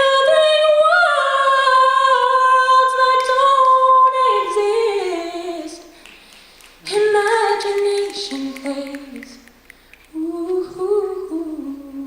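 An a cappella group of female voices singing without instruments: a long held chord for about four seconds that then slides down and fades, followed by two softer, shorter phrases.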